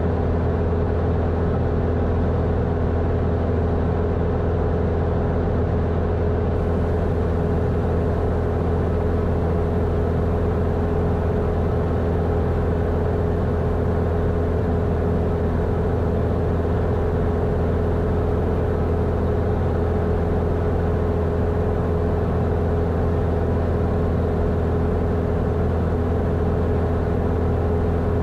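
Grumman American AA-5 light aircraft's piston engine and propeller running at steady power, heard inside the cockpit: a constant low drone with a steady higher tone over it.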